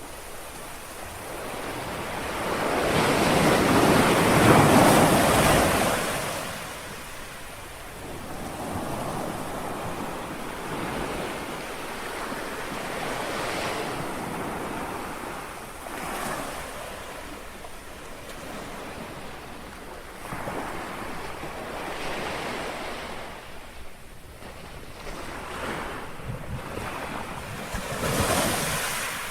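Small sea waves lapping on a shore, each swell of noise building and fading, the largest about four seconds in and another near the end, with some wind on the microphone.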